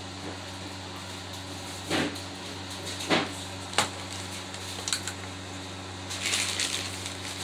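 Handling noise: a few scattered knocks and clacks, one sharper click in the middle, and a brief rustle near the end, over a steady low electrical hum.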